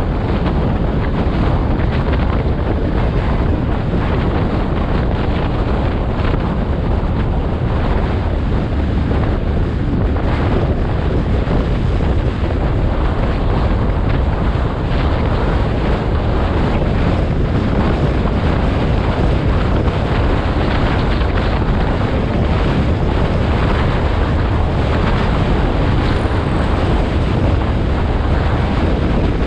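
Wind rushing over the microphone of a camera on a moving motorcycle: a loud, steady roar.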